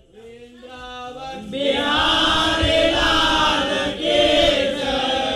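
Chautaal group singing by men. A single voice starts the line, and the whole group joins in unison about one and a half seconds in, the sound growing much fuller and louder.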